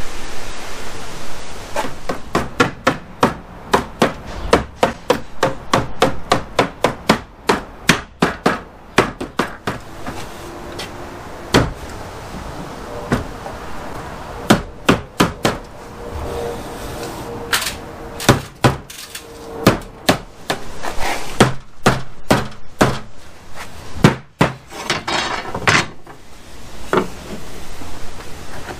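Hammer knocking on pressure-treated lumber while the door frame and panel boards are fitted together: dozens of sharp knocks in quick irregular runs, with short pauses between them.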